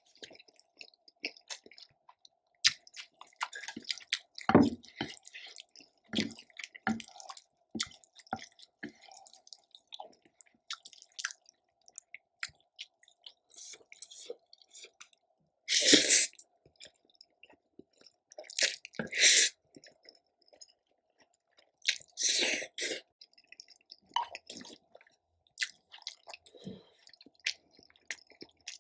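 Close-miked mouth sounds of a person eating black-bean noodles and kimchi: wet chewing, smacking and squishing, broken by a few louder short noisy bursts.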